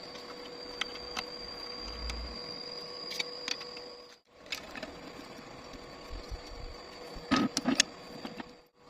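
Steady electrical hum with a few scattered clicks, then a short cluster of louder metallic knocks about seven seconds in, like a hand tool being handled; the sound drops out for a moment about four seconds in.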